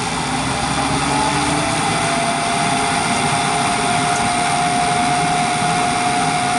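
Trane XV90 two-stage gas furnace running: its inducer fan and burners make a steady hum. A steady whine sets in about a second in and the sound gets a little louder as the furnace moves from first to second stage.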